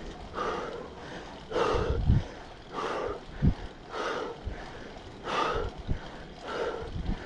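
Cyclist breathing hard in a steady rhythm, about one heavy breath every second or so, from the effort of riding uphill. Wind thumps on the microphone now and then.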